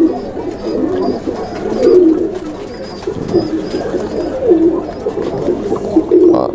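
Domestic pigeons cooing, several overlapping, with a low coo rising and falling every second or two.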